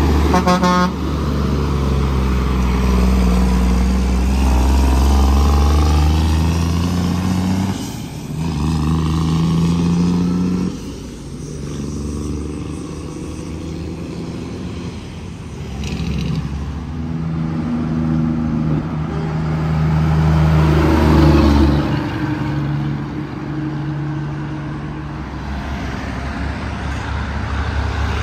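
Heavy diesel trucks pulling away and passing on the road, the engine pitch climbing and then dropping several times as they shift through the gears. A short horn toot about a second in.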